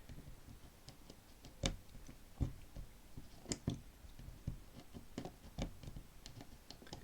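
Faint, irregular clicks of a Squire Snap Lock 210's combination wheel being turned while slight pressure is held on the barrel, the first step in decoding the combination by feel and sound.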